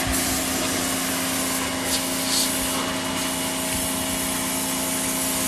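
IFOURNI IF-701A electric high-pressure washer running steadily: the whine and hum of its 1800 W carbon-brush motor over an even hiss.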